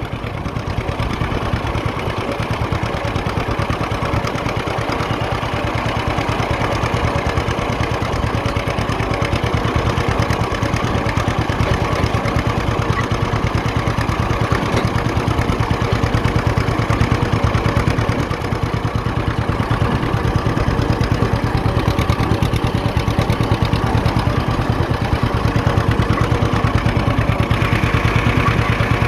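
John Deere 50 two-cylinder tractor engine running steadily under load while pulling a field roller, heard from the seat, a little louder over the first several seconds and then even.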